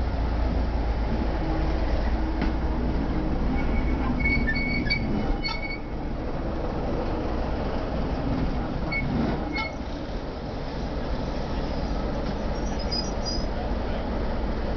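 Class 33 diesel locomotive's Sulzer eight-cylinder engine running with a steady low rumble as the loco runs round its train, with brief high squeals from the running gear a few seconds in, again about halfway through and once more near the end.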